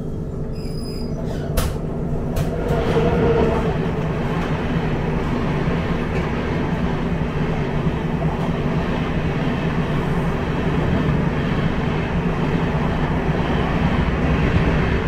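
Mumbai Tejas Rajdhani Express passenger train running on the track: a steady rumble and rattle of the coach, with a single sharp click about a second and a half in.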